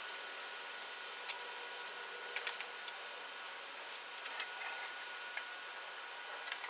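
Quiet steady hiss with a faint high steady tone, and scattered light clicks and taps as a plastic glue bottle is worked along the plywood edges, squeezing out a bead of wood glue.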